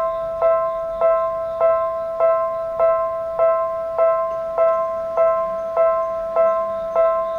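Railway level-crossing alarm ringing: the same single-pitched ding repeats evenly, a little under twice a second, each strike ringing on into the next.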